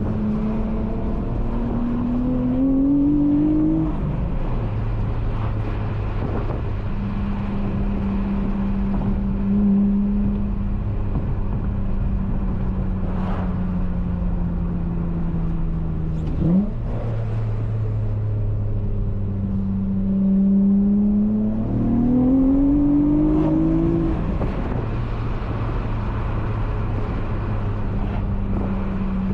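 J32A3-swapped Honda Accord V6's engine through a loud Skunk2 Megapower single-exit exhaust, driven on the move. Its pitch rises under acceleration and drops at the upshifts, twice, with steady cruising between and a short sharp rev blip about sixteen seconds in.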